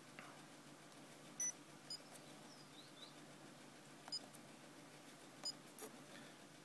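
Keypad beeps from a RigExpert AA-230PRO antenna analyzer as its menus are stepped through: four short, high beeps spread over a few seconds.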